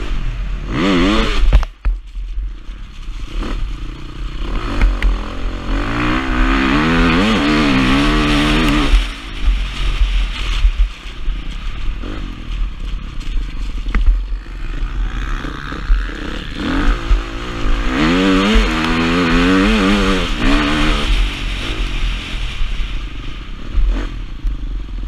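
A motocross bike's engine under hard riding, its revs climbing and dropping again and again as the throttle is worked, with long pulls about 6 and 18 seconds in. Heavy wind rumble on the microphone and the clatter of the bike over rough, muddy ground run underneath.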